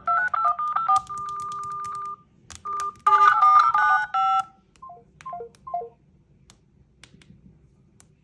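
Phone keypad dialing tones: a quick run of two-note touch-tone beeps as digits are keyed, a steady single beep held for about a second, a second quick run of key tones, then a few short falling blips before it goes quiet for the last two seconds.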